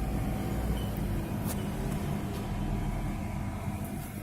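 School bus engine running with a steady low rumble.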